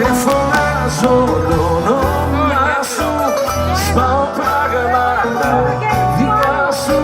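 Live band playing a Greek song: a wavering lead melody over a steady bass line, with occasional cymbal strokes.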